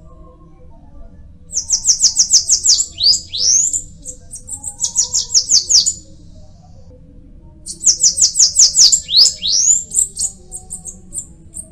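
Bananaquit singing: two bursts of rapid, very high, thin notes that end in quick downward slurs, the first starting about a second and a half in and the second about eight seconds in.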